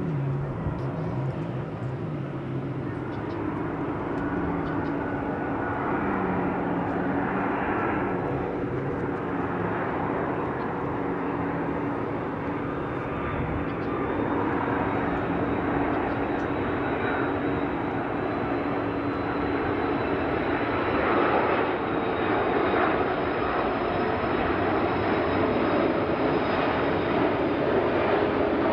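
Airbus A330-300 airliner on final approach with its landing gear down, its jet engines giving a continuous rumble that grows gradually louder as it comes closer. A faint high whine runs through the second half and rises slightly.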